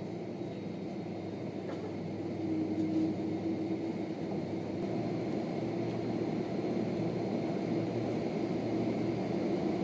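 Steady cabin noise inside a Boeing 767-300 on the ground: engines running at low power and the air-conditioning hum, with a faint steady high whine, growing a little louder after about two seconds.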